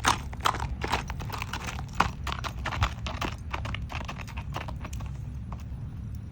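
Shod Paso Fino mare's hooves clip-clopping in quick, rapid steps, growing fainter near the end.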